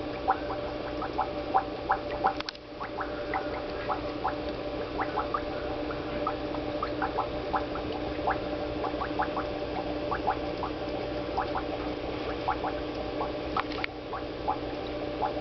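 Aquarium water bubbling: a rapid, irregular patter of small bubble plinks over a steady hum.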